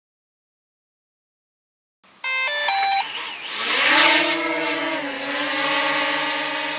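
DJI Mavic Mini drone beeping a few quick stepped tones, then its propeller motors spin up with a rising whine and settle into a steady hover hum. It all begins about two seconds in.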